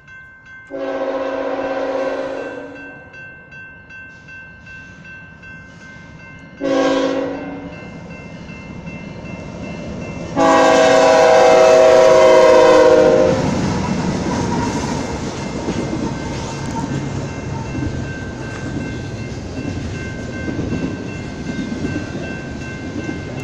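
Union Pacific diesel locomotive's multi-note air horn blowing long, short, long for the grade crossing, the last blast the loudest, over the ringing of the crossing bells. About thirteen seconds in, the horn stops and the rumble of the locomotive and double-stack container cars rolling through the crossing takes over, with the bells still ringing.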